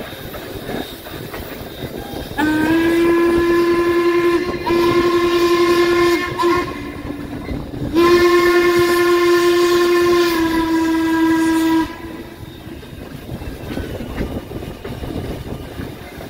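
The steam whistle of 1309, a 1949 Baldwin 2-6-6-2 articulated locomotive, blowing the grade-crossing signal: two long blasts, a short one and a final long one, several tones sounding together. Under it runs the clatter of the train rolling on the rails.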